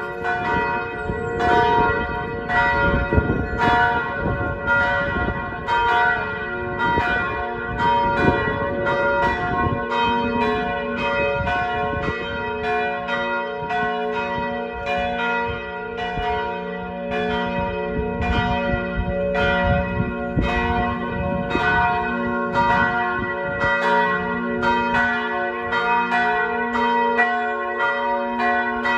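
Church bells pealing together for the noon ringing, heard from directly beneath the tower: quick overlapping strikes, about three a second, over a dense steady ring of many tones.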